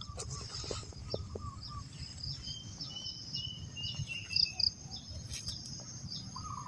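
Outdoor rural ambience: a steady high insect drone with small birds chirping, including a run of short, slightly falling notes about halfway through.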